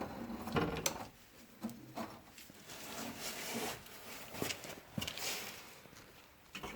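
Hand tools and metal parts working on a car's rear suspension: scattered short clicks and clanks, irregularly spaced, as the rear axle assembly is unbolted.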